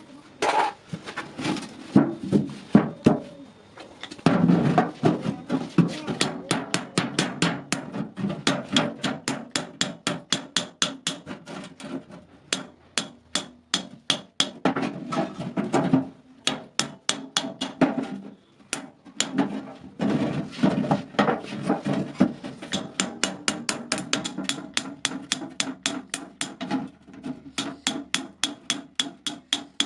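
Blacksmith's hammer beating iron, a long run of ringing metal strikes at about three to four a second, with a few short pauses.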